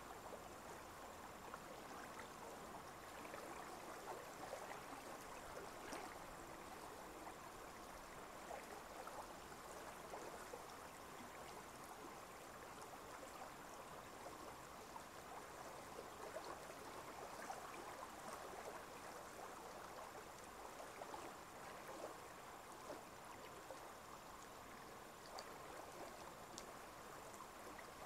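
Faint, steady sound of gently moving water, with small scattered ticks.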